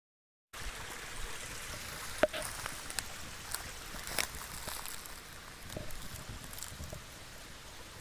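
A steady rushing hiss starts about half a second in, with scattered sharp clicks and twig snaps over it, the loudest about two seconds in and another about four seconds in: footsteps and a handheld camera moving over dry twigs and conifer litter on the forest floor.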